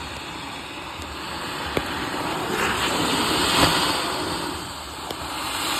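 A firework spraying with a hiss that swells about two and a half seconds in and dies away a couple of seconds later, with a few sharp pops.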